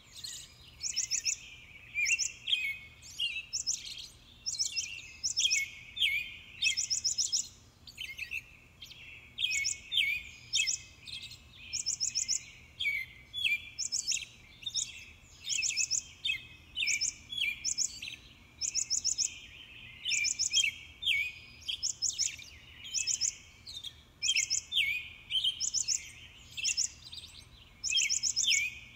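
A steady chorus of high-pitched chirping calls, repeating about once or twice a second. Each call is a quick run of several rapid pulses with short falling chirps beneath it.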